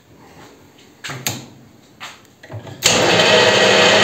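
A few faint clicks, then about three seconds in a benchtop metal lathe (Weisan CJM360) starts abruptly and runs steadily with the power feed driving the carriage.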